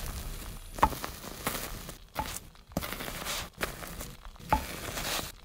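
Food sizzling steadily in a frying pan, with a spatula scraping and tapping against the pan several times.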